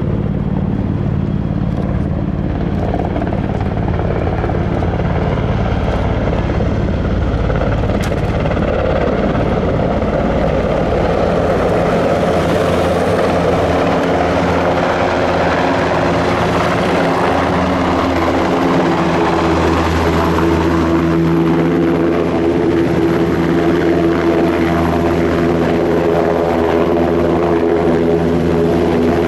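NH90 Caiman military helicopter's rotors and twin turboshaft engines running steadily and growing louder as it approaches and comes in low to hover before landing. In the second half a steady, many-toned hum from the hovering machine comes to the fore.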